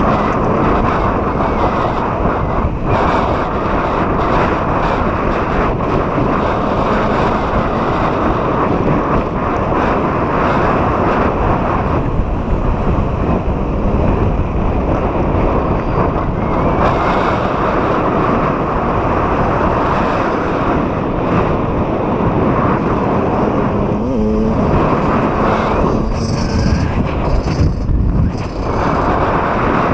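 Wind buffeting the microphone of an electric mountain bike ridden fast over a dirt trail, with a steady low rumble from the ride.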